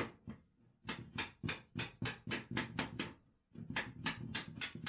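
A rapid, regular run of light clicks, about five a second, from hand work fitting a pin between plastic Argo track segments; after a short pause near the end the clicks come faster.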